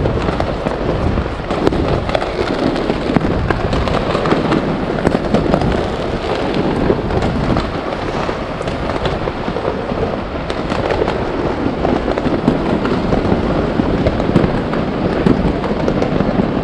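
Many fireworks going off at once: a dense, unbroken crackle of countless small bangs and pops.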